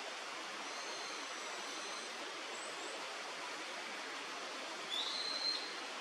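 Steady rush of river water, with thin, high whistled bird notes over it. Faint held whistles sound in the first two seconds, and a louder whistle rises slightly, then holds, about five seconds in.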